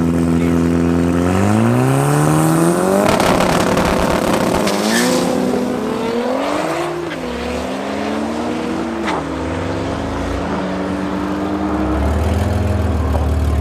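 Drag race launch of a Nissan GT-R's twin-turbo V6 against a second car: the engine holds steady on the start line, revs up sharply and pulls away in a loud roar. The pitch climbs and drops through three gear changes as the cars run down the strip. A deep steady engine hum grows near the end.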